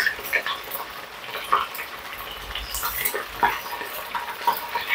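Hot oil sizzling and crackling in a small saucepan as spoonfuls of a ground-meat mixture deep-fry, with a few sharp clicks among the crackle.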